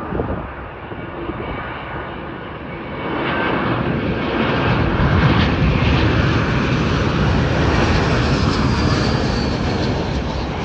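Jet airliner passing close by, its engine noise swelling after about three seconds into a steady loud rumble and roar. A faint high whine slides down in pitch near the end as it goes by.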